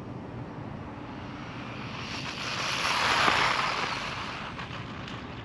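Maverick DOHA RC truck, converted to a Hobbywing 2435 4500 KV brushless motor on a 3S battery, speeding past at full throttle: its motor and tyre noise swells to a peak about three seconds in, then fades.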